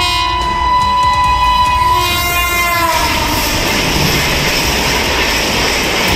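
Passenger train's locomotive horn sounding as the train approaches. Its pitch drops as the locomotive passes, about three seconds in. Then comes the steady noise of passenger coaches running past on the track.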